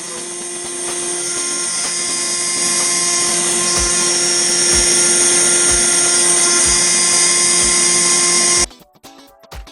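High-speed CNC router spindle milling a brass plate: a steady high-pitched whine with several fixed tones over a cutting hiss. It swells over the first few seconds and cuts off abruptly near the end.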